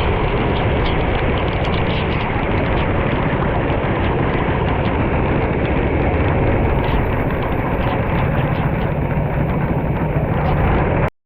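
Onboard recording of a go-kart running, its engine buried in heavy wind noise on the microphone. The sound is loud and steady, then cuts off abruptly near the end.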